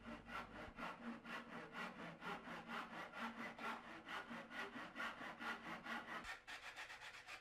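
Tenon saw cutting a mitre through a wooden dado rail held in a mitre block, in quick, even strokes of about four a second. The sawing stops near the end.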